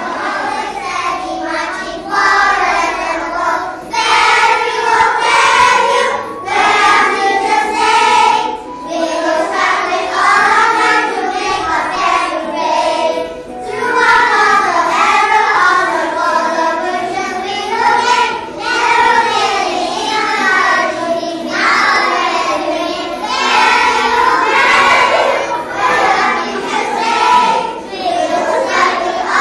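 A group of primary-school children singing a song together, phrase after phrase with short breaks between.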